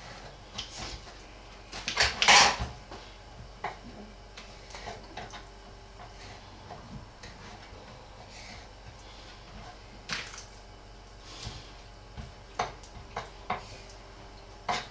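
Kitchen knife cutting raw liver on a wooden chopping board: scattered taps and scrapes of the blade against the board, with a louder burst of noise about two seconds in.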